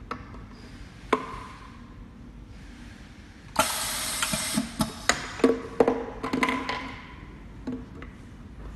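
Tabletop semi-automatic label-sticking machine running a cycle on a plastic bottle. A sharp click comes about a second in, then a loud burst of hiss about three and a half seconds in, typical of its air cylinder venting. A quick run of clacks and rattles follows as the plastic bottle and machine parts are handled.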